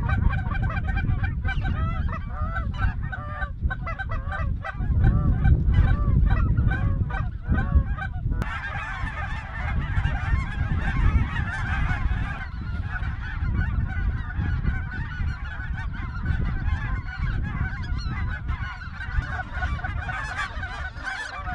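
Flocks of geese calling in flight: a dense chorus of honks and yelps, thicker and more continuous after about eight seconds, over a steady low rumble.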